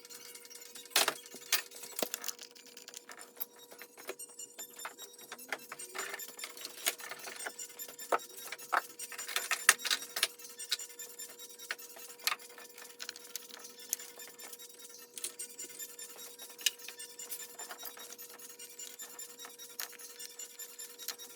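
Metal hand tools clinking and tapping against engine parts in irregular short clicks, over a steady faint hum.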